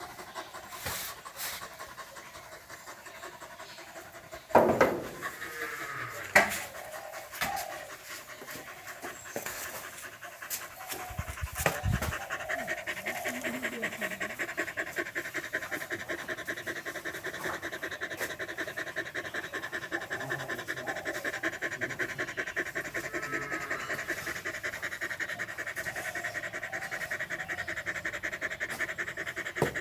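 A dog panting hard with its tongue out, a fast even rhythm that settles in and holds steady through the second half, the dog cooling itself in the heat. Two sharp knocks about four and six seconds in.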